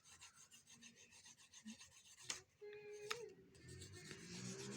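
Faint, scratchy back-and-forth rubbing of a colouring tool scribbling on paper, with two light clicks about halfway through.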